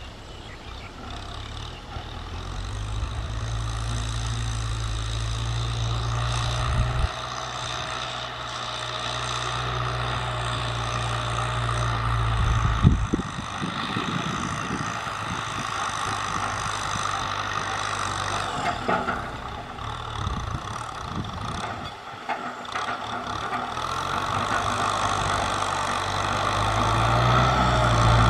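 Kubota M6040SU tractor's diesel engine running steadily while working a rice field. It drops back for a while partway through, then grows louder again near the end.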